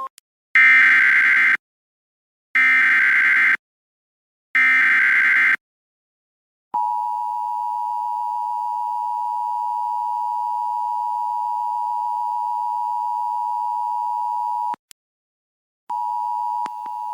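Emergency Alert System activation: three one-second bursts of SAME header data tones, a screechy digital warble with short gaps between them, followed by the EAS two-tone attention signal, two steady tones held together for about eight seconds. It cuts off, then the attention tone starts again briefly near the end.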